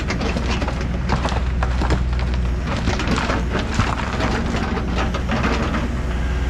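Takeuchi TB290 mini excavator's diesel engine running steadily while soil and stones pour from its bucket into the hole as backfill, a dense rattling and crumbling that thins out near the end.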